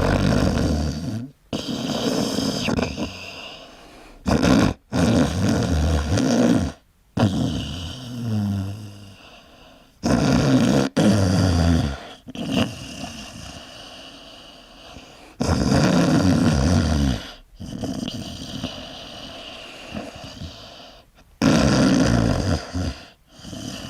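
A person snoring loudly: a long run of low, rough snores, one after another, broken by abrupt short gaps.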